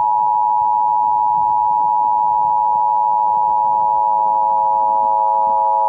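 Emergency Alert System attention signal: two steady high tones sounding together, held unbroken and at an even level, over a lower pair of steady tones.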